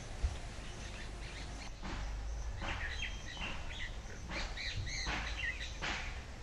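Small birds chirping a few times in the middle, over a low steady hum, with a few soft knocks and scrapes of damp soil being worked by hand.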